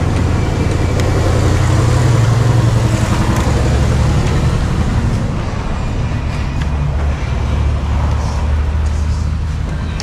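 Low rumble of a road vehicle's engine going by outside, swelling about two seconds in, then settling to a lower steady drone.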